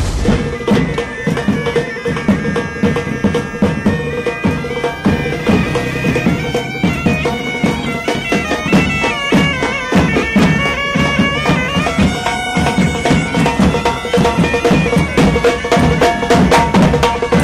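Pipe band playing: bagpipes sound a stepping melody over a steady drone, with side drums beating along, the drumming growing busier and louder near the end.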